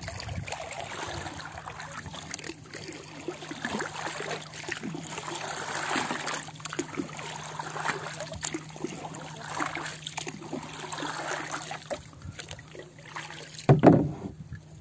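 Water lapping and splashing against the hull of a small paddled boat on open sea, with a faint steady low hum underneath and a louder thump near the end.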